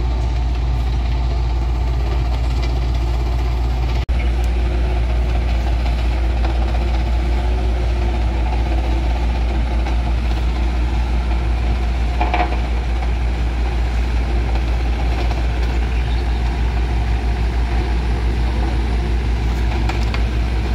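Heavy diesel road-construction machinery running steadily: a backhoe loader driving up close with a load of dirt in its bucket and a road roller working behind it, a deep continuous engine drone with a faint even pulse.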